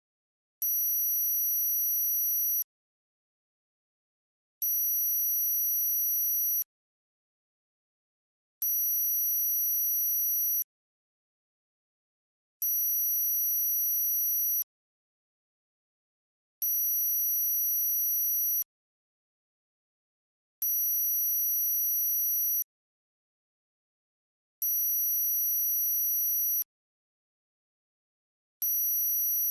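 Synthesized high-pitched tone for tinnitus masking, beeping on for about two seconds and off for about two seconds, over and over. Each tone is steady, with fainter lower tones beneath it.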